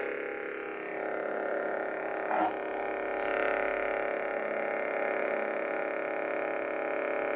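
Lightsaber sound board (CFX) playing its steady electronic idle hum through the hilt's small speaker just after ignition. There is a brief louder accent about two and a half seconds in and a slight swell just after.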